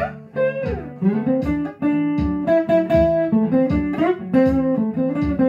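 Fender Stratocaster electric guitar playing a repeating blues lick in A on the notes A, C and D, several notes sliding up in pitch, over a blues backing track in A.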